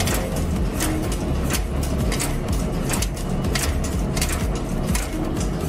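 Four-die, four-blow cold heading machine running while making pipe rivets: a steady low hum with sharp metallic strikes repeating evenly, about two to three a second, as finished rivets drop into the metal bin.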